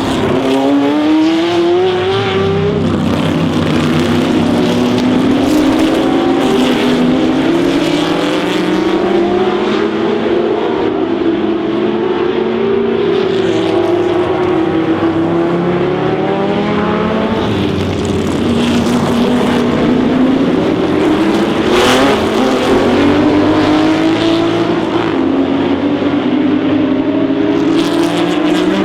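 Racing car engine under hard acceleration, its pitch climbing and then dropping at each gear change, again and again.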